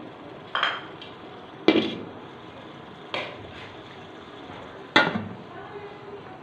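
Cookware clanking: four sharp knocks with a short metallic ring, the last one, about five seconds in, as a glass pot lid is set down onto an aluminium cooking pot.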